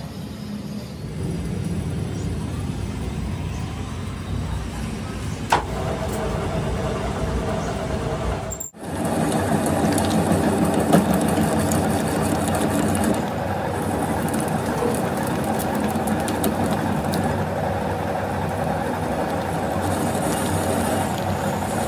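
Metal lathe running and turning the end of a crankshaft, a steady machine hum with scratchy cutting noise from the tool bit, starting after a cut about nine seconds in. Before it, a low steady rumble with one sharp knock about five seconds in.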